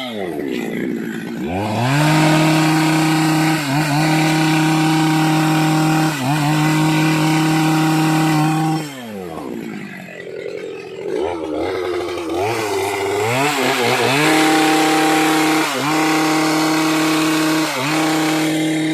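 Two-stroke chainsaw running at high revs while cutting dry hard teak. The engine note sags briefly every couple of seconds, and twice it drops toward idle, at the start and about nine seconds in, before revving back up.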